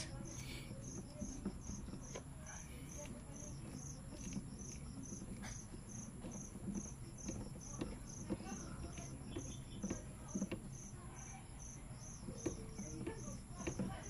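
An insect chirping steadily in the background, about twice a second, like a cricket. Over it come faint rubbing and clicking as hands turn the plastic shift knob onto the gear lever.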